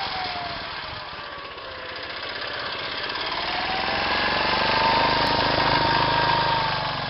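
Homemade mini tractor's small engine running as the tractor drives through snow. Its pitch drops over the first couple of seconds, then climbs back, loudest about five seconds in, and eases slightly near the end.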